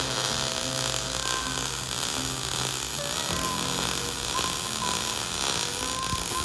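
MIG welder laying a continuous bead, a steady crackling hiss of the arc, welding a steel cup-shaped air-bellows mount to a steel plate.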